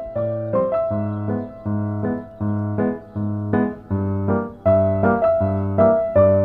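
Background music: piano or electric piano playing a melody over a steady pulsing bass line, about two notes a second.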